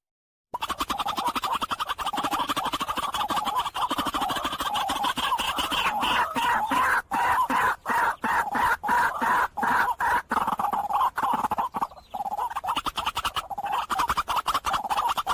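White-breasted waterhen (dahuk) calling: a fast, continuous run of harsh repeated notes that starts about half a second in. The run breaks briefly a few times and cuts off at the end.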